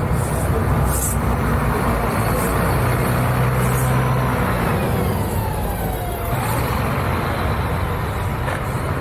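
Double-decker bus driving past close by, its engine humming loudest about three to four seconds in, with a whine that falls in pitch about five to six seconds in as it moves away.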